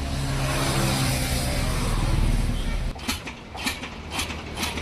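A steady engine hum for about three seconds. Then a borehole drilling rig clanks sharply and regularly, roughly every half second, as it drills a soil-test borehole.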